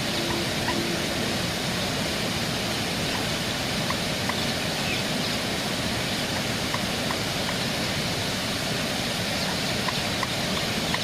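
Steady rushing of flowing water. In the first second there are two short low notes, and faint short ticks are scattered throughout.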